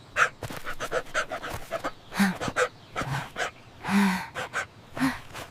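A dog panting in quick, uneven breaths, with a few short low whines in between.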